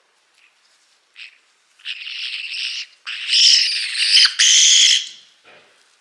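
Black-headed caique giving loud, harsh screeches: a short note about a second in, then a screech of about a second, then a louder one of nearly two seconds broken briefly in the middle. The agitated calling of a caique in breeding season.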